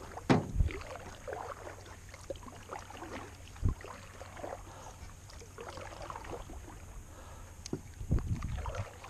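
Canoe being paddled with a double-bladed paddle: the blades dip and pull through calm water, splashing and dripping between strokes, with a few sharp knocks, the strongest just after the start and about halfway through.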